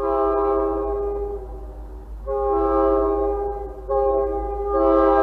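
MBTA commuter rail train's multi-chime air horn sounding the grade-crossing signal: two long blasts, a short one, then the final long blast starting near the end.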